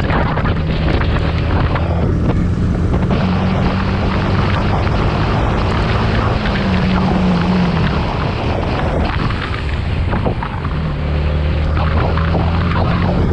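Yamaha R15 V3's 155 cc single-cylinder engine running through its stock exhaust, steady, with the pitch rising briefly about six and a half seconds in and the engine dropping back and quieter around nine to ten seconds before picking up again.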